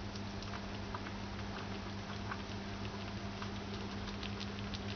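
A white pet rodent chewing and lapping milk-soaked rice from a plastic plate: a quick, irregular run of small wet clicks and smacks, over a steady low hum.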